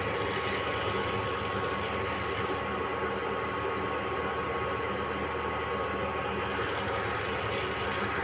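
Tulsi kadha, a water-based spiced herbal decoction, boiling steadily in a pot on a gas burner: an even, unbroken boiling and burner noise.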